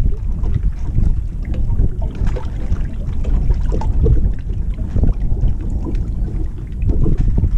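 Wind buffeting the microphone of a small camera mounted on a boat: a loud, uneven low rumble that swells and dips.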